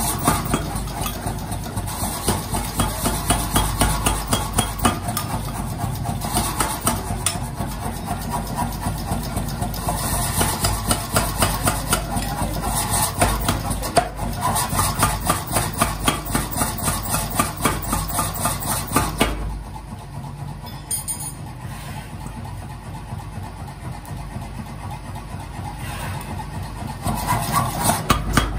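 Mechanical power hammer pounding a red-hot axe head in a rapid, steady run of blows over the machine's running motor. The blows thin out and get quieter about two-thirds of the way through, then pick up again loudly near the end.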